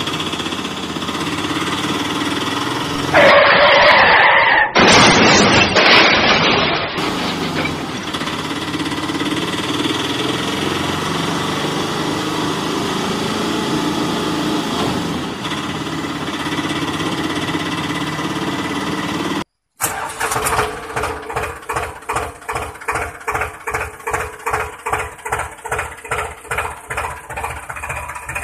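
Engine sound effect running steadily, with two loud rushing bursts between about three and seven seconds in. After a brief cut-out near twenty seconds, it gives way to a tractor engine chugging at about three beats a second.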